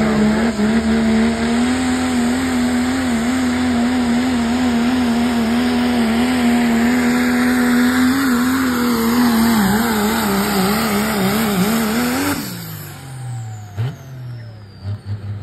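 Diesel four-wheel-drive pickup truck's engine held at high revs under full load as it drags a pulling sled, the pitch wavering slightly as it digs in. About twelve seconds in the driver lets off, and the revs fall away quickly to a much lower, quieter note.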